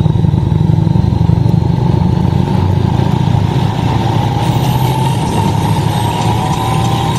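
Touring motorcycle running at steady road speed, heard from on the bike: a low engine drone under wind and road noise.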